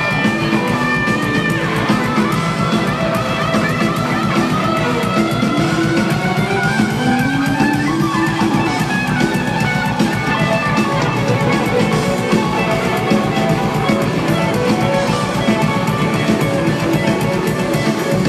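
Live rock band playing: electric guitar and bass guitar over a drum kit, with a note sliding upward about halfway through.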